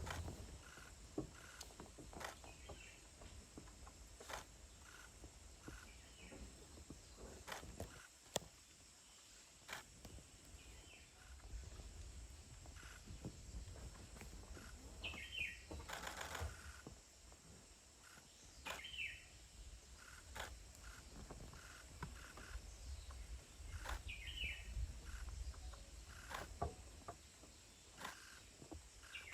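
Quiet forest ambience with a bird repeating a short falling call every few seconds, among scattered faint clicks and a low rumble.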